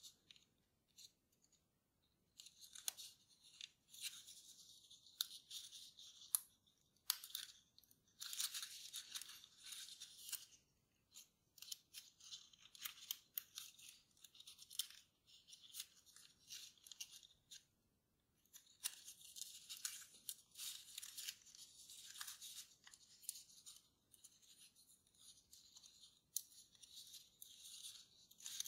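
Faint rustling and crinkling of a sheet of kraft paper as fingers fold and press it, in short irregular bursts with brief pauses between.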